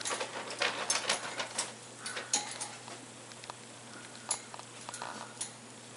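Scattered light clicks and taps, thick in the first two seconds and sparse after: an Alexandrine parakeet's feet and beak on a wire cage top and a small wooden cup.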